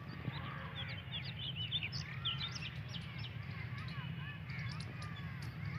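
Birds chirping and calling, many short quick notes throughout, over a steady low hum.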